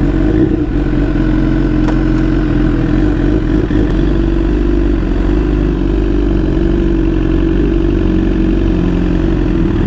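BMW S 1000 RR inline-four engine idling steadily just after being started, holding an even pitch with no revs.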